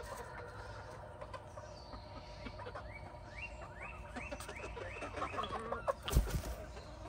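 Hens clucking; partway through one hen gives a run of about seven quick rising calls in a row. A single thump sounds about six seconds in.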